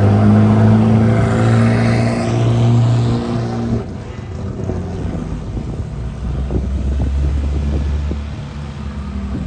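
Car engine running at a steady speed with a strong, even note. About four seconds in there is an abrupt cut to a lower, deeper car engine note with scattered clicks.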